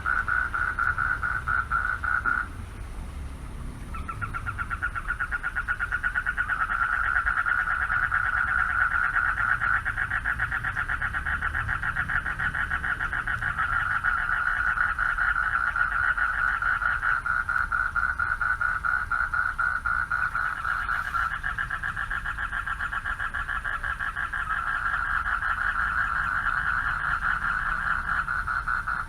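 Male frogs calling for mates from a pond: a dense chorus of fast, pulsing trills at a steady pitch. It breaks off about two and a half seconds in and starts again a second and a half later. A low background rumble runs underneath.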